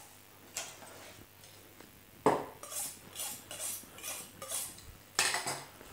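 Butcher's knife being honed on a sharpening steel: about eight quick scraping strokes of blade on steel, starting a little over two seconds in.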